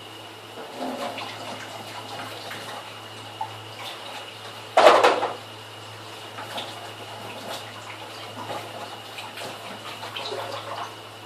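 Washing dishes at a kitchen sink: water from the tap running and splashing in short bouts, with one loud splash about five seconds in.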